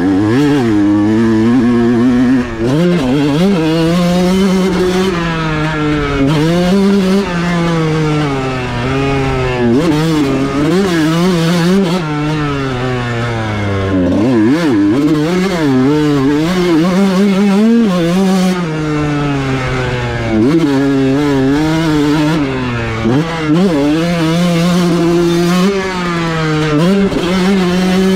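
Kawasaki KX125 single-cylinder 125cc two-stroke motocross engine ridden hard. It revs up and drops back again and again as the throttle is opened and closed through the lap.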